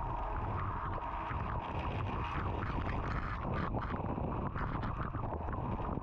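Inside a Samsung DW80R9950US WaterWall dishwasher during a wash cycle: water spraying and splashing irregularly against the racks and walls over the steady low hum of the wash pump.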